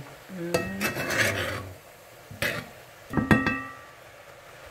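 A spoon scraping and stirring through sautéing greens in a pot, with a couple of sharp clinks of the spoon against the pot about three seconds in.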